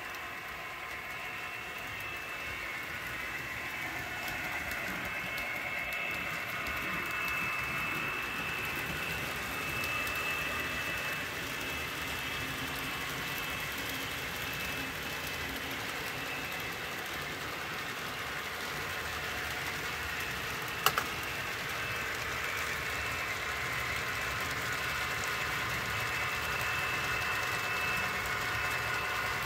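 Model trains running on a layout: a steady whir of small electric locomotive motors and wheels rolling on track, with a thin high whine that swells and fades. One sharp click about two-thirds of the way through.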